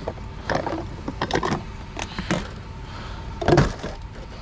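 Knocks and rustling from curbside junk being picked up and handled, with a louder knock about three and a half seconds in, over a steady low rumble.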